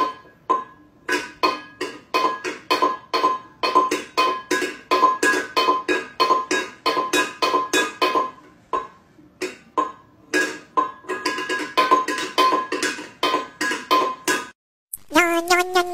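Stainless steel pet bowl knocked and clattered about on a tile floor by a cat's paws, each knock ringing with the same metallic tone. The knocks come in an uneven run of about two or three a second, with short breaks, and stop shortly before the end.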